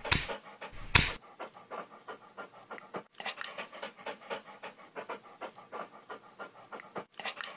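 German Shepherd dog panting close by in quick, even breaths, several a second, with two louder short sounds near the start.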